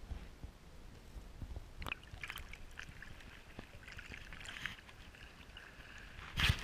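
Water sloshing and splashing at the surface close to the camera as a snorkeler swims, with scattered small crackles and a louder splash near the end.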